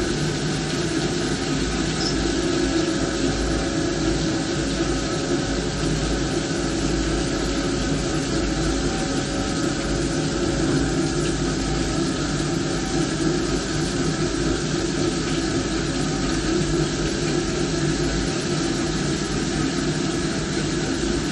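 CNC milling machine running a drilling cycle under flood coolant: a steady spindle and cutting hum with a constant spray of coolant, and a few steady tones held through.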